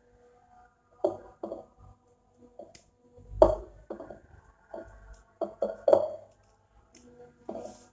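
Short, soft handling noises as hands press and turn a raw, rice-stuffed whole chicken in a glass bowl while sewing it shut with thread, with a dull knock about three and a half seconds in.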